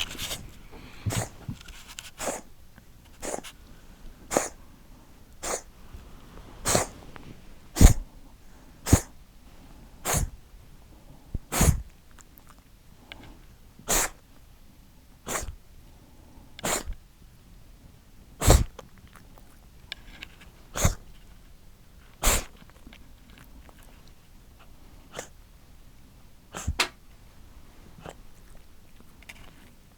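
A cat reverse-sneezing over and over: short, sharp snorts about once a second, coming further apart after about twenty seconds.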